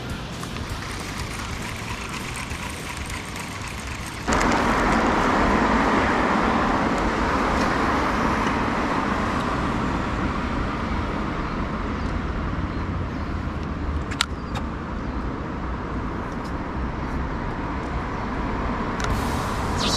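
Small fishing boat's motor running under way, a steady noise that jumps abruptly louder about four seconds in.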